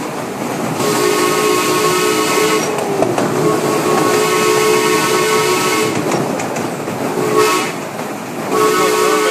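Miniature live-steam locomotive's chime whistle sounding a chord in blasts: two long, a short one, then another long one starting near the end, the grade-crossing signal, over the rumble of the train running on its track.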